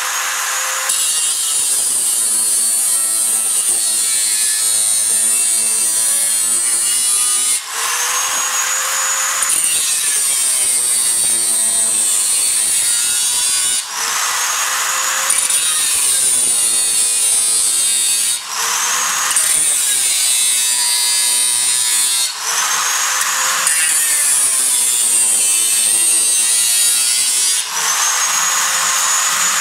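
A small handheld power tool cutting into a metal can: a high steady whine whose pitch sags and recovers as the tool bites into the metal, broken by several short dips.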